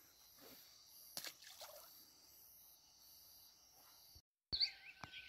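Faint night chorus of crickets and other insects, a steady high pulsing trill, with a soft click or two. After a brief break near the end, birds chirping and a click.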